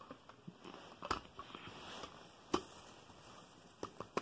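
Hard plastic pieces of a toy train station model clicking and knocking together as the roof piece with the station sign is fitted on: a few sharp clicks, one about a second in, the loudest at about two and a half seconds, and two more near the end, over faint rustling from handling.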